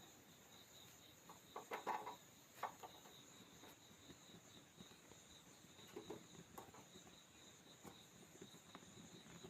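Near silence with a faint steady high-pitched hiss, broken by a few faint light clicks and knocks, the clearest a little under two seconds in and around six seconds in.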